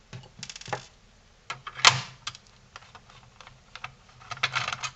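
Clicks and taps of a screwdriver and hands working on the plastic casing of a PS4 power supply, with a sharp snap about two seconds in and a quick run of rattling clicks near the end.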